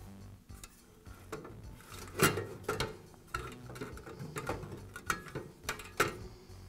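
Plastic fan grill and metal reflector knocking and clicking against the sheet-metal fan housing as they are aligned and pressed into place, with two sharper knocks about two seconds in and near the end.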